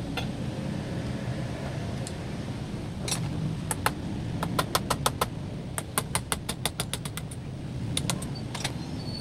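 A steady low rumble with a quick run of sharp clicks through the middle and a few more near the end.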